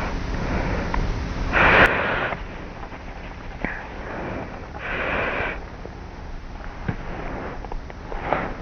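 A young woman's slight snoring in sleep on her back: slow, regular, noisy breaths about three seconds apart, the first the loudest, recorded close up by a cassette tape recorder on the pillow over steady tape hiss.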